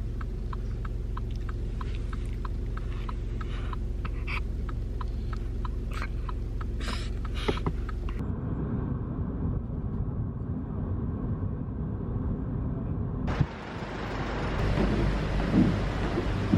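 A steady low rumble with regular light ticks, about three a second, through the first half. The sound changes abruptly about halfway through, and a louder hiss comes in near the end.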